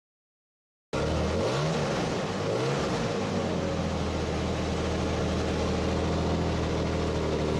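A motor engine running, cutting in suddenly; its pitch rises twice, then it holds at a steady speed.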